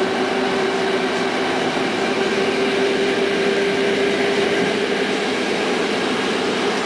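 Passenger train heard from inside a carriage, running steadily along the track: an even rumble with a steady humming tone that rises slightly in pitch.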